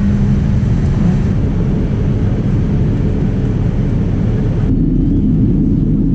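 Steady engine drone heard inside a light aircraft's cabin: a low rumble with a constant hum and hiss. About three-quarters of the way through it changes abruptly to a slightly higher hum with much less hiss.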